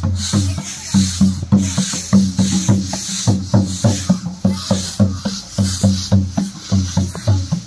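Grass brooms swishing and scratching over a concrete path, over a fast, even low drumbeat of about three to four beats a second.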